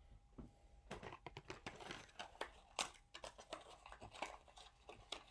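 Baking soda being spread around on a plate: a faint, irregular run of short scratchy, crunchy scrapes.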